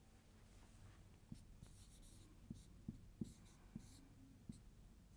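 Dry-erase marker writing on a whiteboard: faint short squeaks and taps of the tip as a word is written, from about a second in until near the end.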